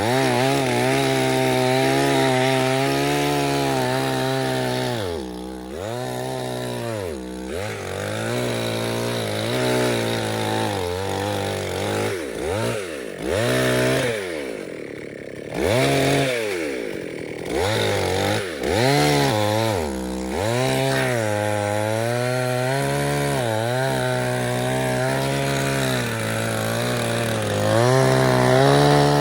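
Chainsaw running while cutting in overgrowth. Its throttle is released and squeezed again over and over, so the engine pitch drops and climbs back many times.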